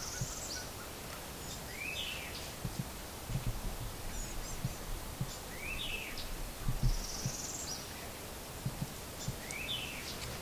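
A songbird sings the same short phrase three times, about every four seconds: a high buzzy trill, then an arched note that rises and falls, over a steady outdoor hiss. A few soft low thumps come through between the songs.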